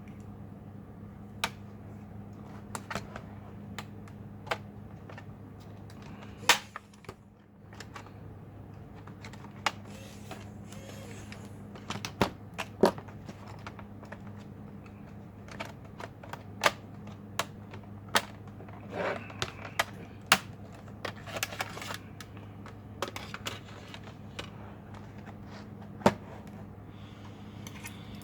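Irregular clicks, taps and brief scrapes of hands and small tools working on the plastic case and parts of an HP 15-R029WM laptop during disassembly, over a steady low hum.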